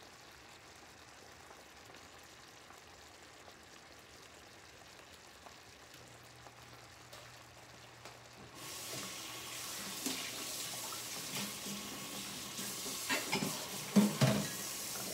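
Kitchen tap running, turned on about two-thirds of the way in, with a few knocks and clatters just before it stops. Before it, only a faint low hum.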